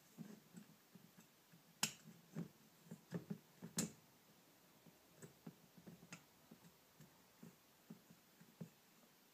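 Scattered light clicks and taps of small metal parts and tools being handled while the carburetor bank is taken apart, with two sharper clicks about two and four seconds in.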